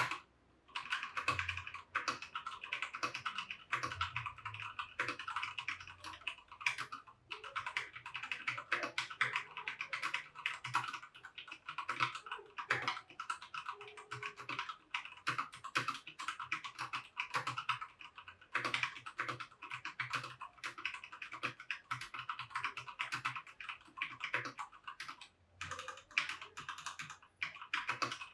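Fast, continuous typing on a Keychron K2 Version 2 wireless mechanical keyboard with brown switches: a dense run of key clacks, with brief pauses about seven seconds in and again near the end.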